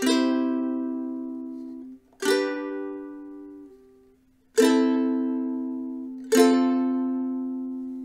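Tom T5S ukulele strummed with the fingers: four single chords about two seconds apart, each left to ring and fade before the next.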